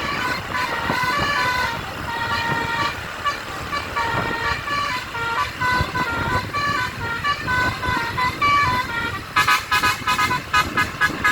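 Basuri telolet bus horn playing a melody of held and stepping notes. About nine seconds in, it breaks into a fast run of short staccato toots.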